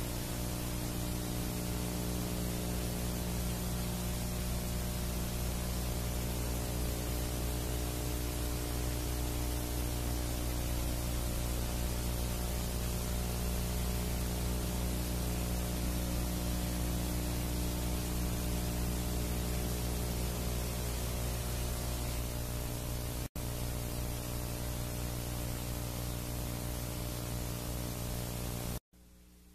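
Steady hiss with a low electrical hum: background noise of the recording, with no programme sound over it. It breaks for an instant about 23 seconds in and cuts off suddenly just before the end.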